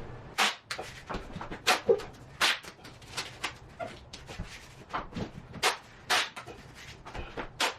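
Irregular sharp clicks and taps, roughly one or two a second, some louder than others, typical of hard objects knocking on vinyl planks.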